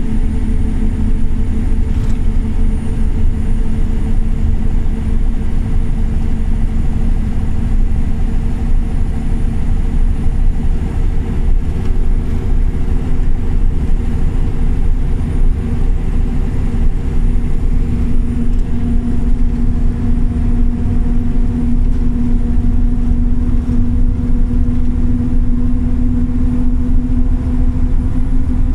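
Scania OmniLink articulated city bus on the move, heard on board: a steady engine drone over a loud road rumble, the engine tone growing louder from about two-thirds of the way through.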